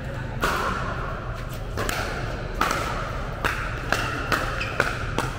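Paddles hitting a plastic pickleball back and forth in a rally: a string of sharp pops, echoing in a large hall, that come faster toward the end, as in a quick volley exchange at the net.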